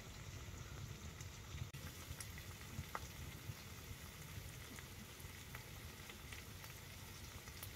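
Bacon and sausages frying, a faint steady sizzle with a few small scattered pops.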